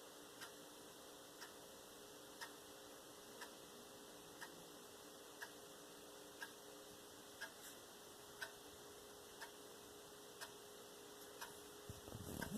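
A clock ticking faintly once a second against quiet room tone with a low steady hum. Handling rustle starts near the end.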